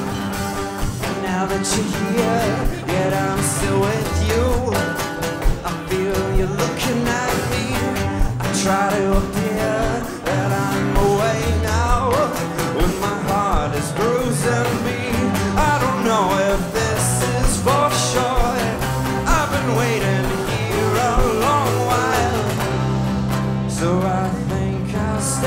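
Live band playing a rock-country song: strummed acoustic guitar, electric bass, electric guitar and drums, with a melody line wavering over the top.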